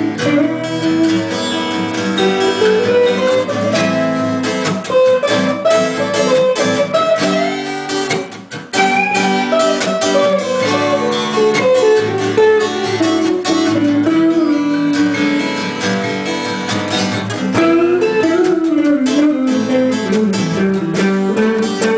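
An acoustic guitar strummed chords under an electric guitar playing a melodic lead line that wanders up and down, with a short break in the playing about eight seconds in.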